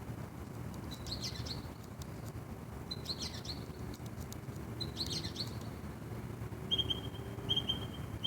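Birds chirping: three short bursts of high chirps about two seconds apart, then a run of short, even, high notes repeating near the end.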